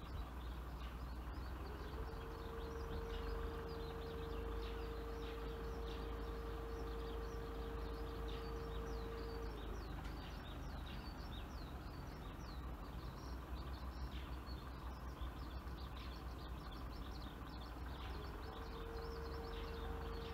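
Small birds chirping over a low outdoor rumble. A steady hum holds one pitch from about two seconds in until nearly halfway, then comes back near the end.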